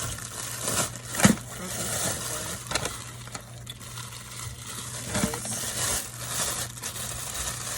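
Kitchen handling sounds: rustling and crinkling with a few knocks, the loudest about a second in, over a low steady hum.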